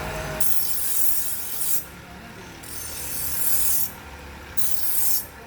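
A knife blade being sharpened in three long rasping strokes, each about a second long, with short pauses between them.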